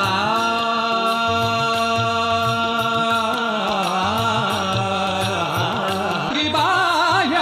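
Marathi song: a singer holds one long note for about three seconds, then sings winding, ornamented phrases, over a steady drum beat.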